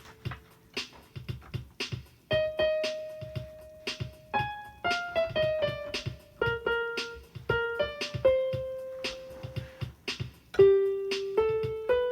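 Piano or electric keyboard playing a melody of single held notes, one after another, over a steady ticking beat.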